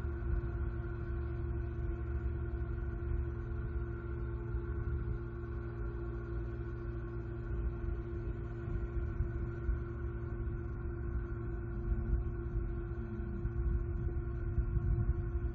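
Steady mechanical hum: a low rumble with several fixed tones held unchanged, like an engine or machine running at a constant speed.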